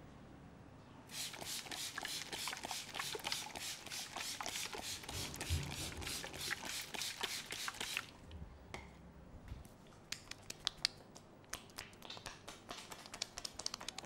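Hand trigger spray bottle being pumped rapidly, about four short hissing sprays a second for some seven seconds, wetting the face and head. After a short pause comes a run of sharp, irregular clicks and taps.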